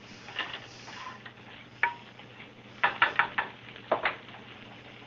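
A spatula stirring onions and vegan chicken strips in a nonstick skillet, with scattered knocks and scrapes against the pan: a sharp tap about two seconds in and a quick cluster of knocks around three seconds.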